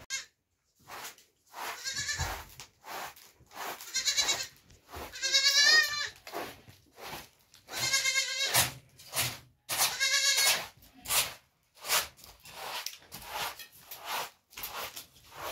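A young goat bleating about five times, each call quavering, the loudest about halfway through. Softer strokes of a hand broom sweeping a carpet follow near the end.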